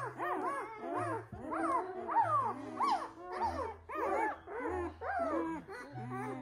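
Several newborn Noble Shepherd puppies (grey wolf × German Shepherd hybrids) squealing and whimpering without pause, many short rising-and-falling cries overlapping. Background music with a low bass line plays underneath.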